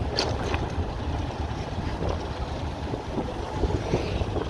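Wind buffeting the microphone over the low, steady rumble of a motorcycle, recorded riding on a moving motorcycle taxi. A few brief clicks come shortly after the start.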